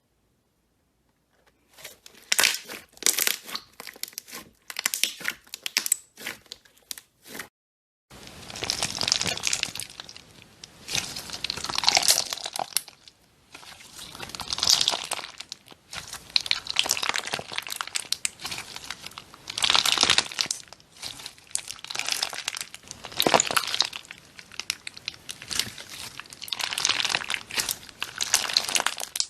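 Slime being squeezed and worked by hand, making crackling, crinkling sounds. First comes a run of sharp crackles, then after a short break a continuous crackle that swells and fades every second or two.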